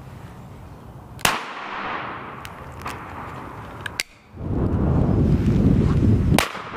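Two shotgun shots about five seconds apart, each a sharp crack with a short ringing tail. A few light clicks follow the first shot, and a loud low rushing noise runs under the second.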